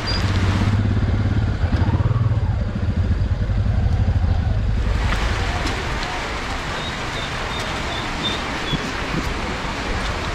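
A motor vehicle engine running with a low hum that is loudest for the first five seconds, then gives way to steady road noise.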